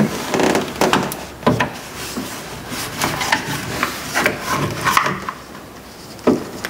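Screwdriver working at a car's interior door handle, prying at the door-latch cable housing: irregular clicks and knocks with scraping between them.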